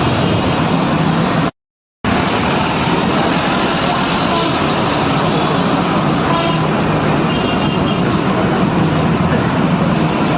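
Busy road traffic: a steady wash of passing cars, trucks and buses. It cuts out completely for about half a second around a second and a half in, then resumes.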